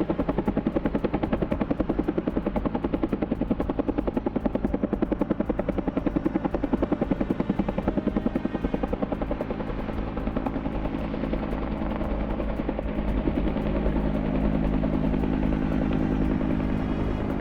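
Firefighting helicopter's rotor beating in rapid, even pulses; after about ten seconds the beat fades and a steadier engine tone comes to the fore.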